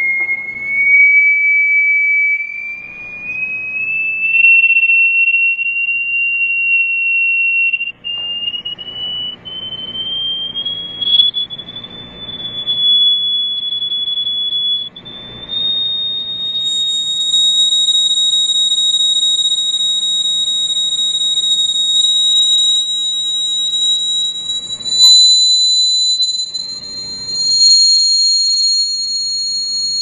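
High-pitched tone from a frequency generator driving a sand-covered Chladni plate. The tone glides slowly upward in pitch, pausing on steady notes between rises, while a grainy rattle from the sand on the vibrating plate comes and goes. Each new frequency sets a new resonance in the plate.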